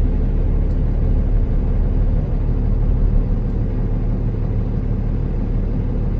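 Diesel engine of a Kenworth T360 concrete agitator truck running steadily, heard from inside the cab as a constant low rumble.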